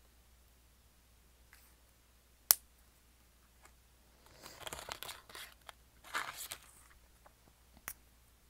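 A pen handled close to the microphone: one sharp click about two and a half seconds in, then two short bursts of scratchy rustling, and a smaller click near the end.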